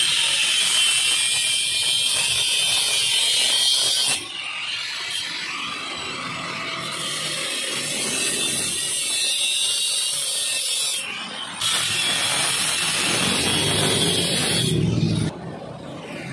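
Angle grinder with a cutting disc slicing through a motorcycle's steel frame tube: a loud high hiss of disc on metal. It cuts in three long runs, easing off about four seconds in and again briefly about eleven seconds in, and stops about a second before the end.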